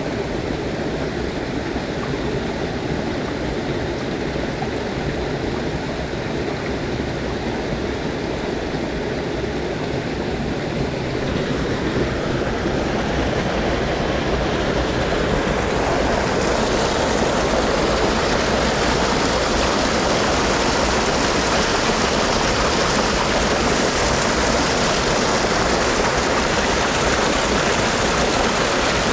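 Small mountain creek rushing and splashing into a plunge pool, a steady rush of water that grows louder about halfway through.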